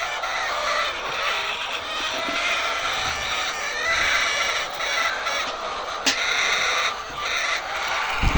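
A flock of laying hens clucking and squawking continuously, many birds at once. A sharp click comes about six seconds in and a thump near the end.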